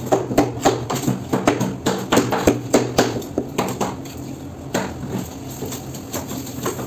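Quick knocks and taps of a cleaver on a wooden cutting board as a fish head is cut, several a second, thinning out after about three and a half seconds, over a steady low hum.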